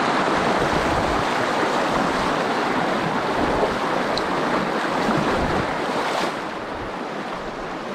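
Fast, shallow mountain river rushing over rocks close by, a steady hiss of white water that eases a little about six seconds in.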